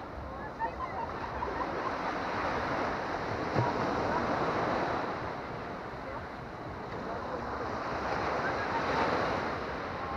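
Small Baltic Sea waves breaking and washing up a sandy beach, the surf swelling and easing every few seconds.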